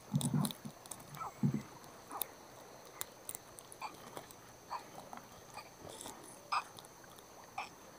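Irregular small knocks, clicks and short squeaks from handling a gill net and a freshly caught fish, the loudest just after the start and at about a second and a half, over a faint steady high-pitched tone.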